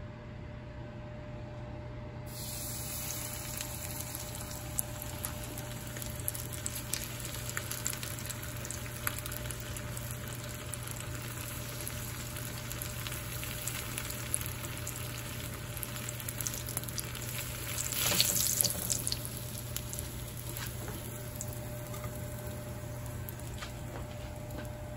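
Hot oil sizzling and crackling in a frying pan as a breaded mozzarella stick fries, with many small pops. The sizzle starts about two seconds in and flares up loudly for about a second near the end.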